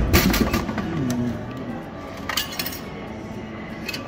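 A drink bottle dropping with a loud clatter into the delivery bin of a Coca-Cola Royal Vendors vending machine, then a few clinks and knocks about two and a half seconds in and near the end as the bin's flap is handled.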